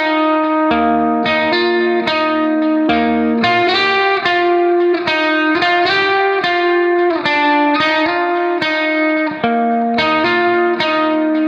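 Background music: a plucked guitar melody with a steady rhythm, notes changing about every half second.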